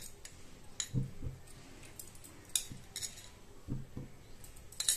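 A metal spoon clinking a few times against a glass bowl and a steel ladle as oil is spooned into the ladle, with a few soft knocks in between.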